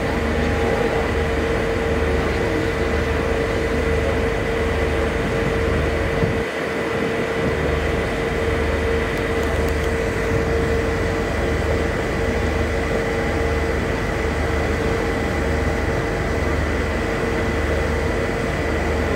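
Excursion boat's engine heard on board: a steady drone with a constant whine and a low throb pulsing about once a second, dipping briefly about six seconds in.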